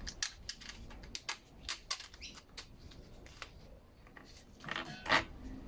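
Scattered light clicks and taps as carburetor mounting screws are handled and fitted by hand on a string trimmer, with a louder knock about five seconds in.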